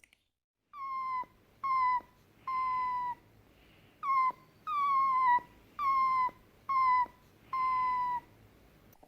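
Fennec fox giving a series of eight high, whistle-like whining calls, each under a second long. Each call starts slightly higher, then holds on one pitch.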